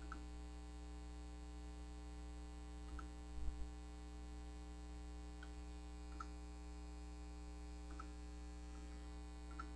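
Steady low electrical hum, with about six faint computer mouse clicks spread through it and one louder soft knock about three and a half seconds in.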